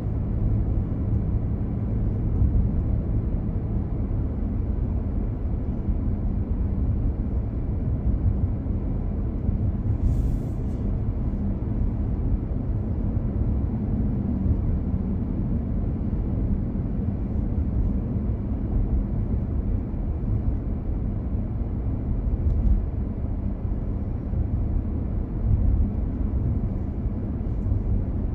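Steady low rumble of a car driving: engine and tyre noise on the road, with a brief faint hiss about ten seconds in.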